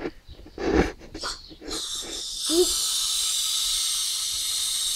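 Hydrogen gas hissing steadily out of a pressurised gas cylinder's valve into a rubber balloon as it inflates, starting about two seconds in. A few knocks and rustles of the balloon being fitted onto the valve come before it.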